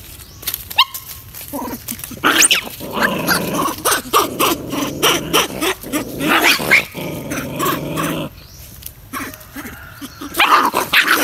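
Young animals squabbling at close range: growls, whines and yelps, broken up by short, sharp scuffling knocks.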